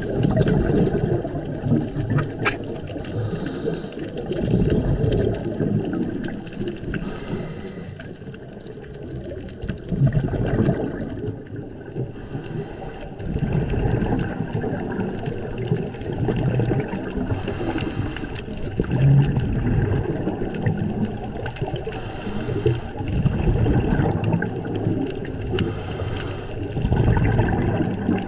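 Underwater recording: a muffled low rumble of water moving and surging, swelling and fading, with a hissing gush of a scuba diver's exhaled bubbles about every four to five seconds.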